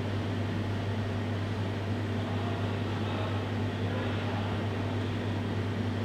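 Steady low mechanical hum of room equipment, an unchanging drone with no distinct events.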